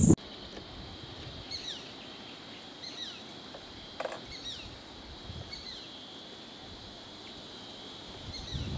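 A bird calling with short, high, downward-sliding whistles, repeated about once a second and often in pairs, over a steady high drone.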